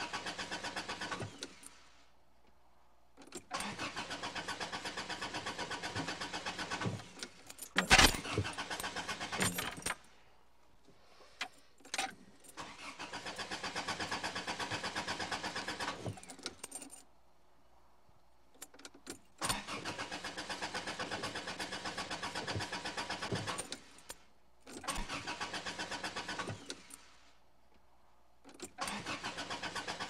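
Car starter cranking the engine again and again, in about six separate tries of one to four seconds each, with a steady pulsing rhythm. The engine never catches: a crank-no-start fault. A sharp click comes about eight seconds in.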